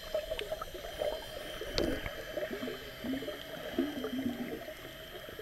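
Muffled underwater gurgling and bubbling, heard with the microphone submerged, with irregular wavering sounds and a few small clicks.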